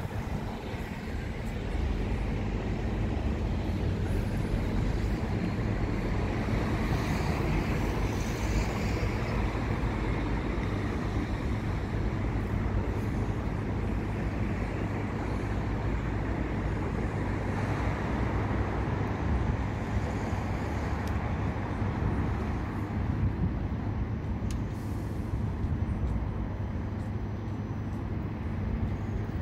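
Steady road-traffic noise with the low hum of double-decker buses' engines running.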